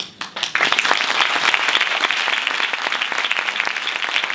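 Audience applauding. Clapping starts about half a second in, swells within a moment and keeps going steadily.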